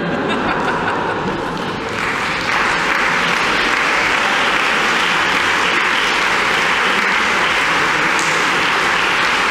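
Audience applauding, swelling about two seconds in and then holding steady.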